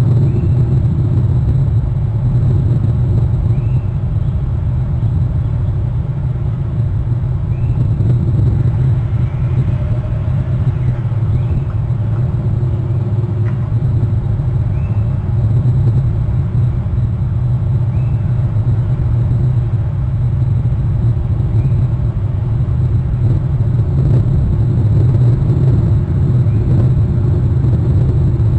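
Steady low rumble of wind buffeting an outdoor nest-camera microphone, with faint high chirps every second or two.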